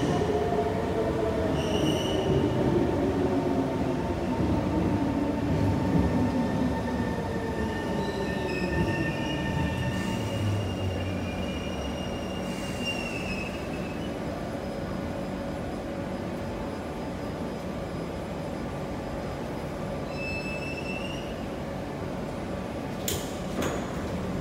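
A Singapore MRT train on the North-South Line slowing down: its motor whine falls steadily in pitch over the first several seconds. Then the wheels squeal in thin, high tones as it slows, and there are a couple of sharp clicks near the end.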